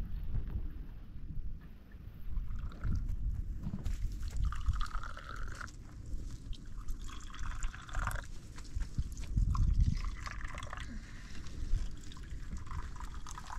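Water being poured and sloshed, with dripping and a low rumble underneath.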